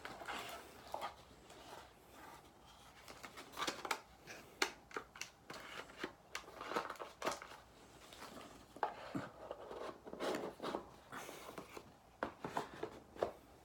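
Packaging being handled and opened, with irregular crinkles, rustles and small clicks.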